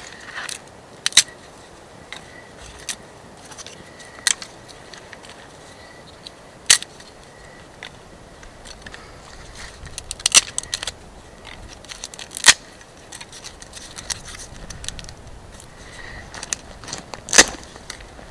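Small newly lit campfire of dry twigs crackling, with sharp pops every few seconds over a low hiss as the kindling catches.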